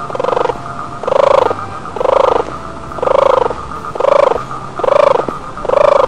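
Animal calls: seven short, pulsing calls repeated evenly, about one a second.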